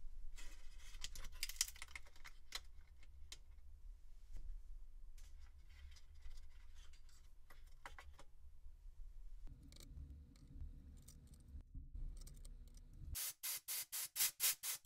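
Small metal clicks and rubbing as a desktop CPU is freed from its LGA socket's retention lever and load plate and lifted out. Near the end, a rapid series of about seven short puffs from a metal air blow gun, about four or five a second, blasting the empty socket.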